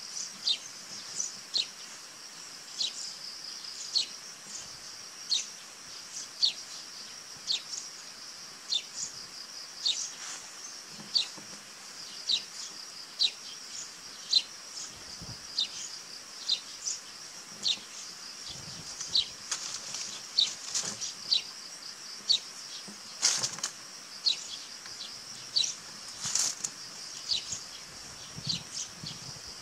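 Garden insects keep up a steady high-pitched trill, with a short high chirp repeating about once a second over it. Two sharp clicks come late on.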